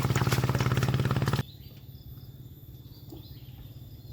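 A small engine running with a fast, even throb, then cutting off abruptly about a second and a half in, leaving a quieter outdoor background with faint chirps.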